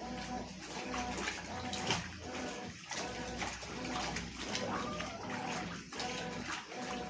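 Consul CWS 12 top-loading washing machine agitating a load in water: the motor whirs in repeated strokes, dipping briefly about once a second, with water sloshing throughout.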